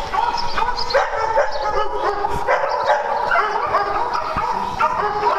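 Several dogs barking and yipping over one another, with whines mixed in, in a continuous overlapping chorus.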